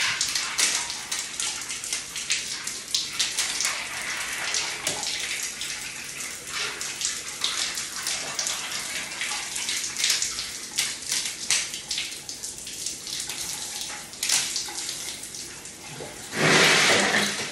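Cold water pouring from a bathtub tap into a filled tub, a steady rush dotted with sharp splashes and clicks, with a louder rush of noise about a second before the end.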